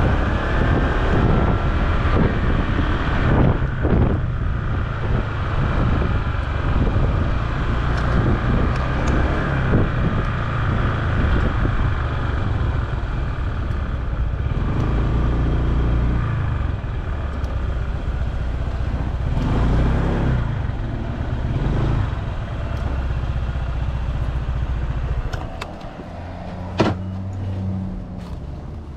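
Honda ADV150 scooter's single-cylinder engine running on the road with wind noise. The sound drops lower near the end as the scooter eases off, and a sharp click comes shortly after.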